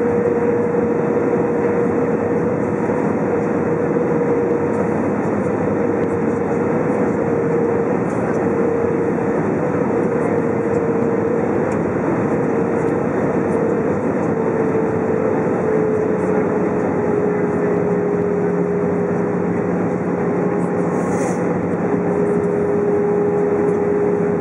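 Airbus A320 cabin noise in flight: a steady rush of airflow and engine noise. A steady hum in it drops a little in pitch about fifteen seconds in, and a lower hum joins soon after.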